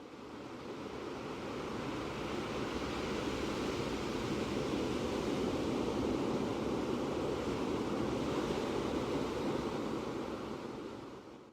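Ocean surf sound effect: a steady wash of waves that swells in over the first couple of seconds and fades away near the end.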